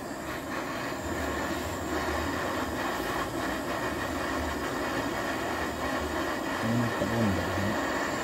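Hand-held butane gas torch on a canister burning with a steady rushing hiss as its flame heats the motorcycle frame.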